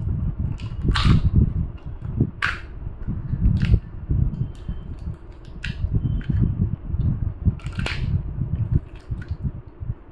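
Hands working at the stubborn inner seal of a plastic sandwich-spread bottle: continuous low rubbing and bumping, with several sharp clicks spread through.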